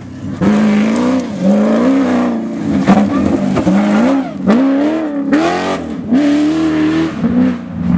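Ford Ranger rally-raid pickup's engine revving hard, its pitch climbing and dropping again about seven times as it passes close and drives off on a dirt track.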